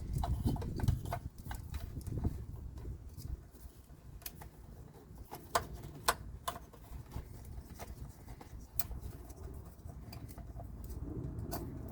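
Trailer wiring harness wires and plastic connectors being handled while they are untangled: scattered light clicks and ticks at irregular times over a low rumble of handling noise.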